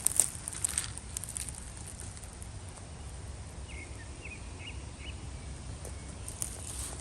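Woodland ambience: a few brief crunches and rustles in dry leaves in the first second, and a faint short call of four high notes about four seconds in, over a steady low rumble.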